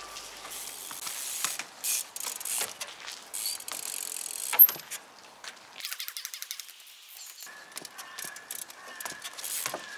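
Trials bike hopping along wooden benches: repeated knocks of the tyres landing on the wood, the loudest strike a little before the middle, and rapid ratchet clicking from the freewheel hub. A thin steady whine joins in over the last couple of seconds.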